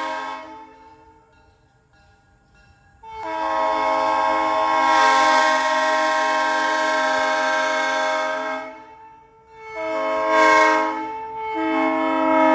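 Diesel locomotive's multi-chime air horn blowing for a road crossing. One blast ends just after the start, then after a pause come a long blast of about five seconds and a short one, and a final long blast begins near the end: the long-long-short-long grade-crossing signal.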